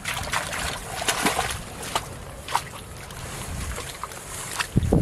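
Water splashing and sloshing irregularly in a shallow muddy pond as a hooked fish thrashes on the line, with a few sharper splashes early on and a heavier splash near the end.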